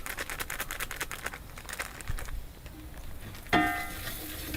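Fast, dense crackling of onions and spices frying in coconut oil in a pan, dying down after about two seconds. A few steady musical notes come in near the end.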